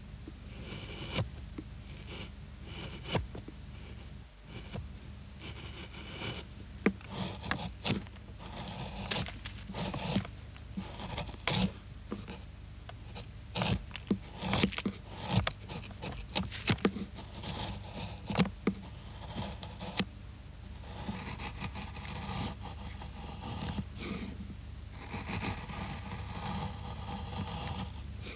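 Bent carving gouges paring wood under hand pressure: a run of short, sharp slicing cuts as chips lift from the hollow, turning to longer scraping strokes near the end.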